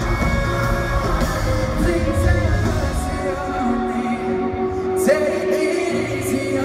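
Live pop music heard from the crowd at an arena concert: a singer holding notes over the band through the PA. The deep bass drops out about four seconds in and comes back near the end.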